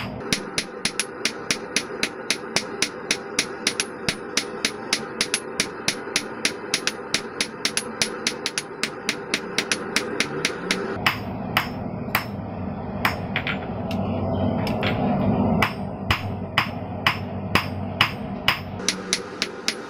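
Hand hammer striking a hot square steel bar on an anvil, about three blows a second, each with a bright ring, as the end is drawn out to a taper. Midway the blows thin out while a louder steady rushing noise swells and then cuts off abruptly, and then the steady hammering resumes.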